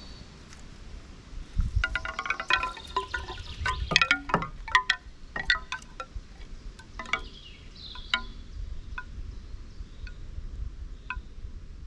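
Chimes ringing: a dense cluster of struck, ringing tones of several pitches for the first few seconds, thinning to single strikes about once a second.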